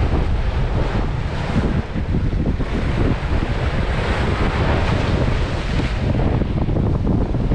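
Steady wind noise on the microphone over sea waves washing against the rocks.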